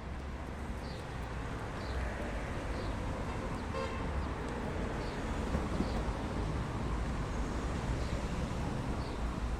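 Steady low rumble of road traffic, with a brief pitched toot about four seconds in and faint short high chirps.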